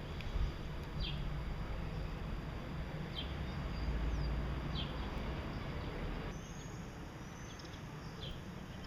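Gouldian finches giving short, high, falling call notes about every second or two over a steady low rumble.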